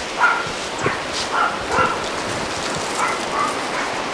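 A dog barking, about six short barks spaced irregularly, over a steady background hiss.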